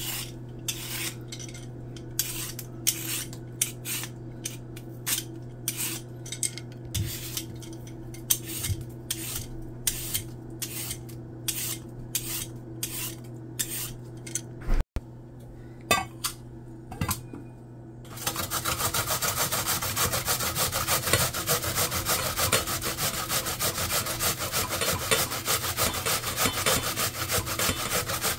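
Vegetable peeler scraping down a carrot and a daikon radish in separate strokes, about two a second. After a short break comes a fast, continuous rasping as the peeled daikon is rubbed over a metal grater.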